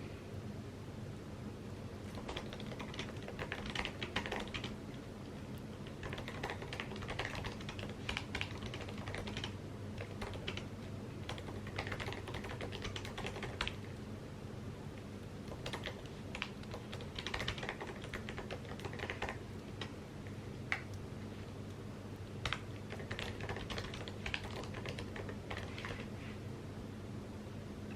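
Typing on an Apple keyboard: runs of quick, soft key clicks in bursts with short pauses between them, over a steady low hum.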